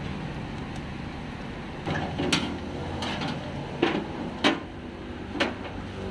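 Four sharp clacks and knocks, from the door-handle parts being worked into place inside a car's steel door shell, over a steady low hum.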